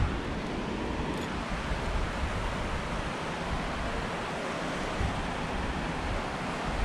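Wind buffeting a head-mounted action camera's microphone: a steady rushing hiss with an irregular low rumble underneath.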